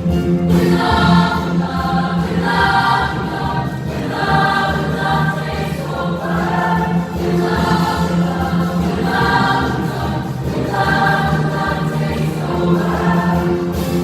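Junior high school choir singing a song in sustained phrases over a steady low accompaniment.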